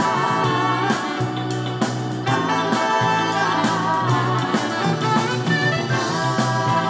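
A song with a singing voice and band played through Canton Plus MX small 2-way sealed-box satellite speakers and picked up in the room; the sound has almost no bass below about 100 Hz.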